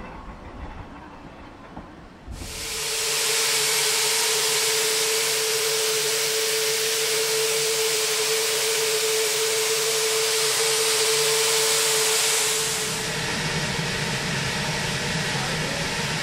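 Steam hissing loudly from a South African Railways NGG16 Garratt narrow-gauge steam locomotive standing at the platform, with a steady whistling tone running through it. It cuts in suddenly about two seconds in, after a quieter low rumble, and eases slightly near the end.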